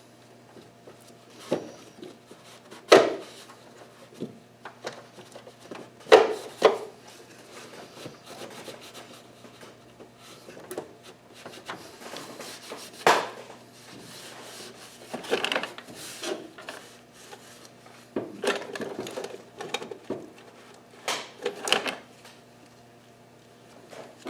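Hand work on a car engine: scattered knocks and clatter of metal parts and tools being handled, with rubbing and scraping in between, over a faint steady hum. Two sharp knocks in the first few seconds are the loudest sounds.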